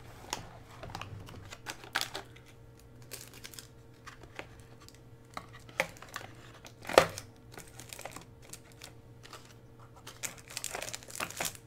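Plastic parts bags crinkling and small electronic modules clicking and knocking as they are pushed into the compartments of a clear plastic kit storage box, with one sharper knock about seven seconds in.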